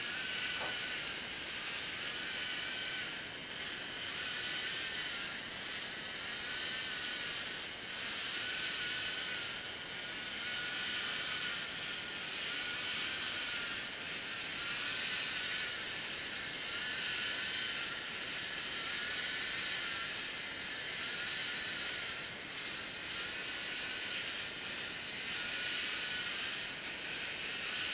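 LEGO Mindstorms NXT robot's servo motors whining and gears whirring as it drives, the pitch wavering up and down every second or two as the proportional wall-follower keeps changing the wheel speeds.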